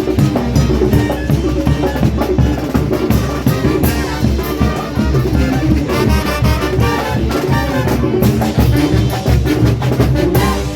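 Brass band playing a Latin dance tune: trumpets and other brass over a drum kit and percussion, with a steady beat.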